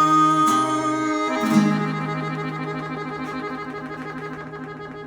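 The closing bars of a song on a Purple Heart acoustic guitar-family instrument: a few last notes, then a final chord that rings on and fades away.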